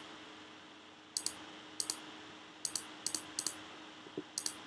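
Computer mouse clicking in short quick groups of two or three, about six groups in all, over a faint steady hum.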